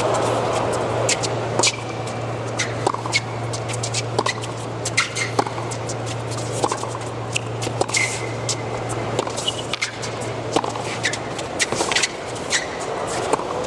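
A tennis rally on a hard court: sharp pops of racket strings hitting the ball and of the ball bouncing, at irregular intervals, with short squeaks of tennis shoes on the court. Under them lies a low murmur of a large stadium crowd and a steady low hum.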